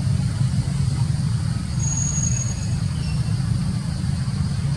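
A steady low rumble, with a brief thin high whistle about two seconds in and a couple of faint high chirps just after.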